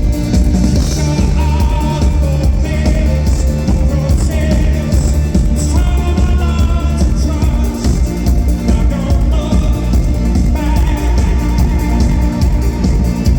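Live rock band playing loud through a concert PA, with heavy bass and a sung melody over a continuous full mix.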